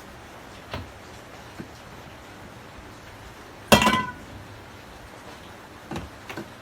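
A few light knocks, then a single loud metallic clink about halfway in that rings briefly, then a couple more light knocks near the end: metal tools or parts being handled and set down.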